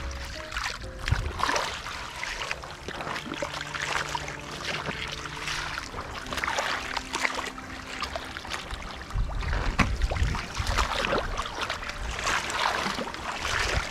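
Shallow muddy water splashing and sloshing in irregular bursts as hands sweep and grope through it among flooded rice stubble.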